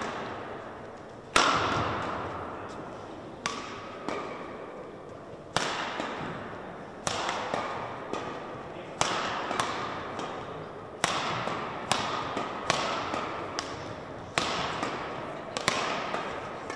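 Badminton rackets striking a shuttlecock in a fast rally, a sharp crack about every second, sometimes two in quick succession. Each hit rings on in the large hall's echo.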